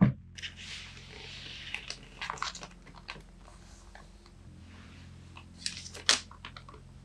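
A folded sheet of paper being handled and unfolded by hand, crinkling in several short bursts, the loudest about six seconds in. A dull thump at the very start.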